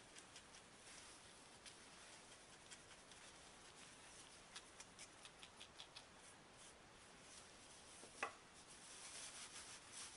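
Faint light ticks and rubbing as a pastry brush dusts loose flour off a snow skin mooncake, with one sharper click late on and a soft rustle of gloved hands turning the mooncake near the end.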